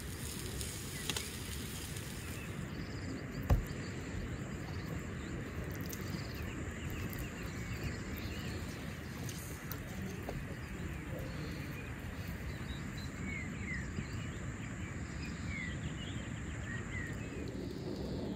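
Steady outdoor ambience with a low rumble and scattered short bird chirps in the second half, broken by one sharp knock about three and a half seconds in.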